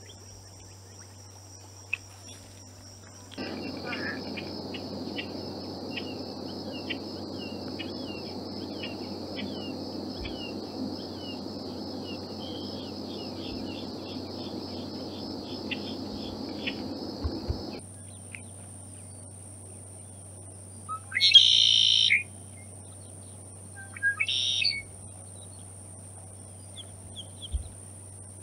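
Red-winged blackbird singing two loud song phrases about three seconds apart near the end. Before that, a steady background hum with many short bird chirps.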